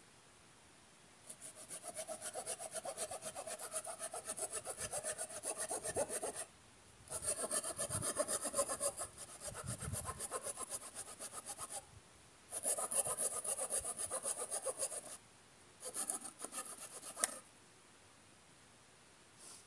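Hand saw cutting through a wooden pole with fast back-and-forth strokes, in four bouts separated by short pauses, the last one brief.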